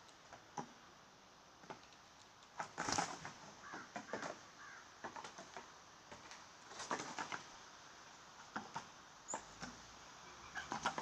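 Blue jays at a seed feeder: scattered soft clicks and taps in short clusters, with a few brief, quiet calls.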